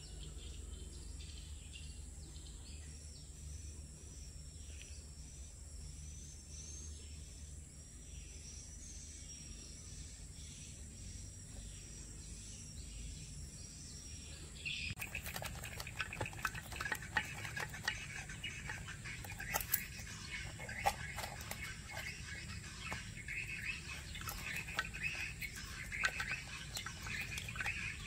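Birds chirping over a low steady hum; about halfway through the chirping turns louder and busier, with scattered small clicks.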